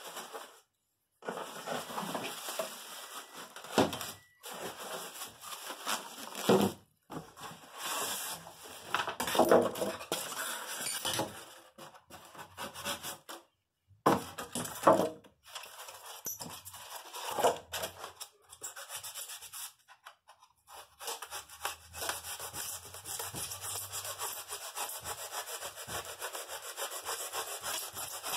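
Polystyrene foam packing and a cardboard box being handled: irregular rubbing and scraping with occasional knocks, turning to a steadier run of scraping in the last part.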